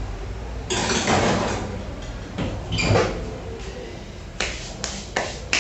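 Metal baking tray sliding into a home oven and the oven door being shut: a scraping slide about a second in, another clunk near three seconds, then a few sharp knocks near the end.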